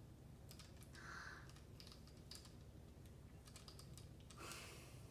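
Faint, scattered clicks of the Orbit Reader 20 braille display's keys and plastic case under fingers exploring it, with a couple of soft rustles.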